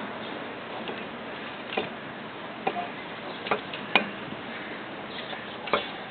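A few scattered light clicks and knocks, roughly one a second, the sharpest about four seconds in, over a steady background hiss.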